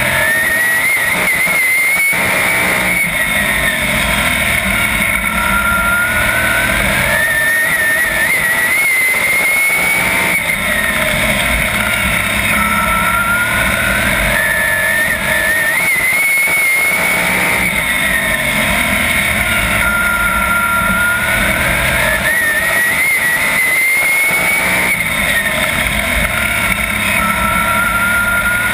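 Onboard sound of a 410 sprint car's methanol-burning V8 engine racing at full song. Its pitch climbs and falls back in a repeating cycle, peaking about four times as the driver gets on and off the throttle around the oval.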